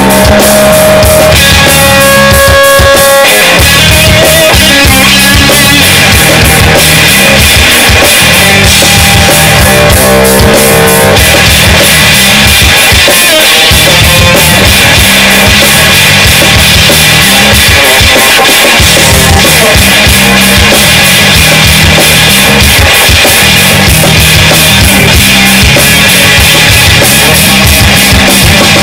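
Live blues-rock band playing loud without vocals: electric guitars over bass guitar and a drum kit keeping a steady beat, with held, bending guitar notes in the first few seconds.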